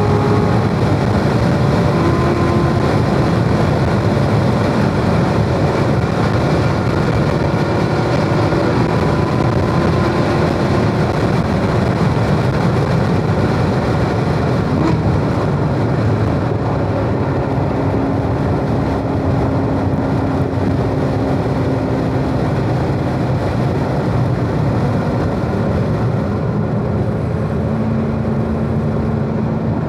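Chevrolet Corvette Z06's supercharged 6.2-litre V8 running hard on track at high speed, heard from inside the car under heavy wind and tyre noise. It eases off in the second half as the car slows, shifting down for a corner.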